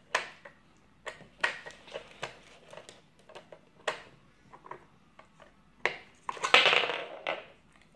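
Irregular plastic clicks and knocks as a Yorkshire terrier noses and shifts the cones and flaps of a Trixie Flip Board treat puzzle, with a longer scraping rustle about six and a half seconds in.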